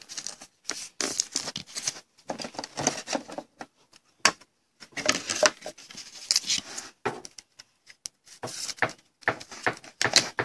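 A trading card and plastic card holders being handled on a table: rustling and scraping in short, irregular bursts, with a sharp click about four seconds in.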